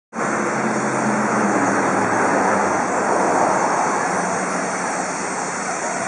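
Steady dense din from a huge flock of birds calling as it swirls overhead, mixed with a low traffic hum.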